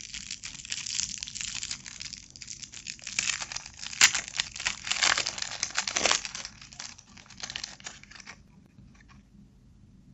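Shiny twist-end chocolate wrapper being untwisted and peeled off by hand: dense crackling and crinkling, with one sharp crack about four seconds in. The crinkling dies away about eight seconds in.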